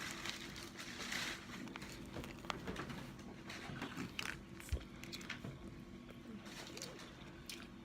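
Faint chewing of a sub sandwich, with scattered small wet mouth clicks and smacks, over a steady low hum.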